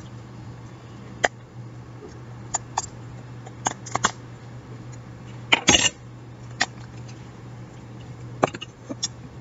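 Small sharp clicks and scratches from flex-cable connectors being pried and unsnapped from a smartphone's motherboard, about ten scattered over several seconds, the loudest cluster a little past the middle, over a steady low hum.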